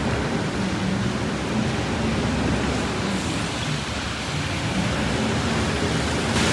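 Steady hiss of rain and car tyres on a wet city street, with vehicle engines running low underneath.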